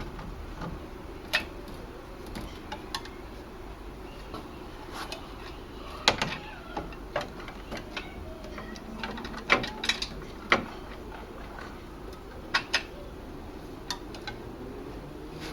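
Irregular metallic clicks and clinks of a 15 mm socket on a breaker bar being fitted onto the belt tensioner nut, with the loudest knocks about six seconds in and again around nine to ten seconds in.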